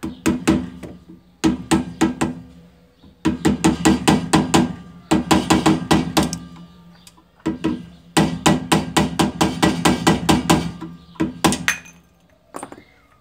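Small hammer tapping a screwdriver wedged against the metal dust cap of a rear wheel hub, to knock the cap off the brake drum. The taps come in several quick runs of about five a second with short pauses between, and the metal rings under them.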